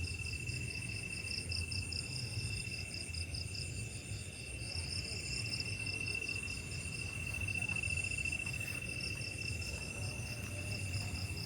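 Chorus of crickets and other insects: a steady high trill with a faster pulsing chirp above it, over a low steady rumble.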